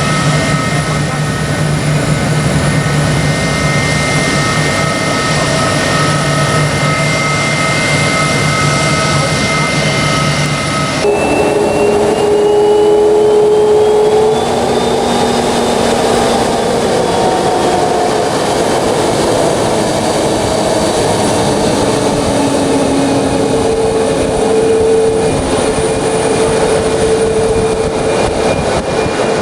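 Jet aircraft engines running loud and steady, with a whining tone over a deep rumble. About 11 seconds in the sound changes abruptly to another jet, whose whine slowly rises in pitch.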